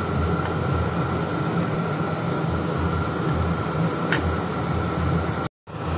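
Steady background noise: hiss over a low, uneven rumble with a thin steady hum. There is one light tick about four seconds in, and the sound cuts out briefly near the end.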